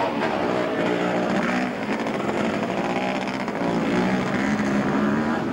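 Motocross motorcycle engines revving hard as they race past, several engines at once, their pitch rising and falling with each throttle change.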